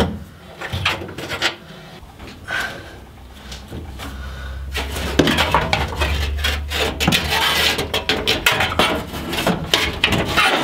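A loose, rusty metal floor panel in a 1940 Chevy truck's cab is worked free and lifted out, scraping and clattering against the floor frame. It starts with a few light knocks, and from about halfway through becomes a steady run of louder scraping and rattling.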